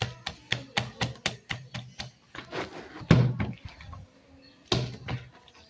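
Hands kneading soft, wet bread dough in a plastic tub: a quick run of sharp slaps and squelches, several a second, then a couple of heavier thumps as the dough mass is worked against the tub.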